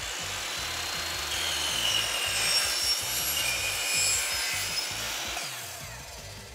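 Chop saw with a non-ferrous blade cutting through an aluminium top rail: a hiss of the cut with shrill squealing tones of blade on metal, loudest midway through and fading near the end.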